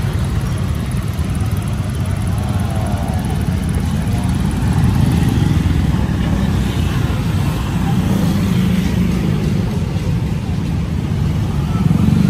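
Street traffic, motorbikes and cars running steadily, with faint voices in the background.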